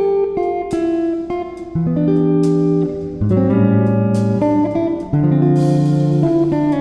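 Background music: a guitar playing a melody of plucked notes and strums.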